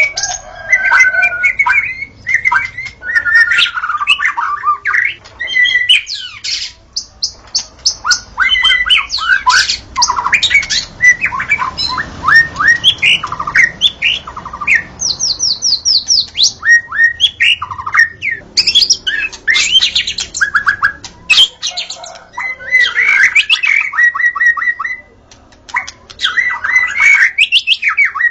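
White-rumped shama (murai batu) in full song: a long, varied stream of clear whistles, pitch glides, rapid trills and fast runs of repeated chattering notes, broken by short pauses.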